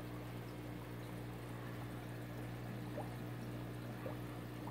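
Aquarium sponge filters bubbling steadily as air rises through their lift tubes, with a faint trickle and a low steady hum beneath.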